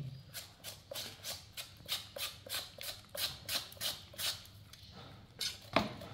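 Hand vegetable peeler scraping the skin off a root vegetable in a quick run of short strokes, about three a second. One sharper knock near the end.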